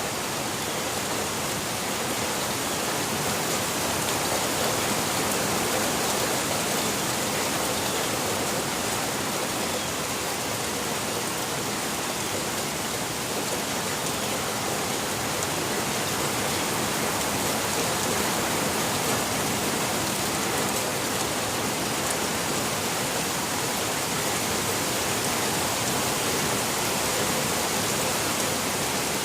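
Steady rainfall, an even hiss of rain with no let-up or single drops standing out.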